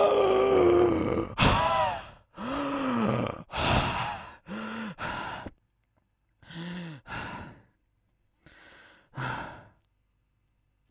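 A man voicing a sleeping old man: a held moan, then a sharp gasp and a run of breathy sighs and exhalations, some with a short groan in them. The breaths grow fainter and further apart, and it goes quiet near the end.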